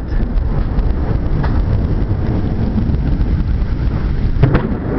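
Thunder rumbling continuously through a thunderstorm, with a couple of sharp cracks, one about a second and a half in and a louder one near the end. Rain and wind buffet the microphone underneath.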